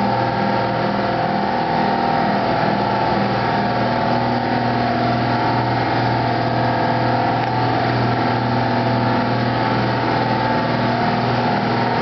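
Steady machine hum that does not change.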